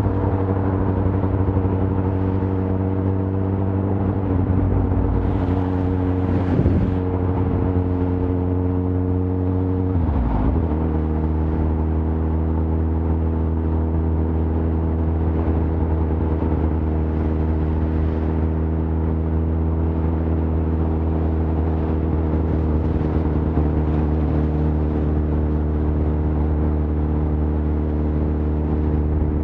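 Suzuki GSX-R 1000 inline-four engine running steadily under way, with one brief drop in the engine note about ten seconds in before it settles again at a slightly different steady pitch.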